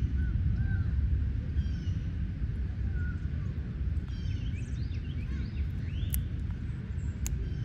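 Small birds chirping in short scattered calls over a steady low rumble, with two sharp clicks near the end.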